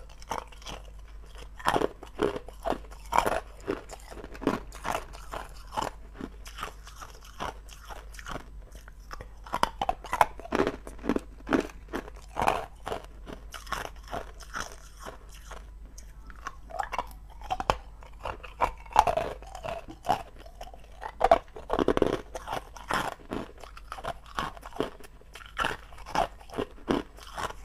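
Hard ice cubes bitten and chewed, a quick, irregular run of sharp crunches with a few short pauses between mouthfuls.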